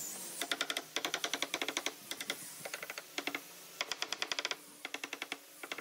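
Several quick runs of light hammer taps on wood, about a dozen taps a second, knocking a round log crosspiece into place in a wooden frame.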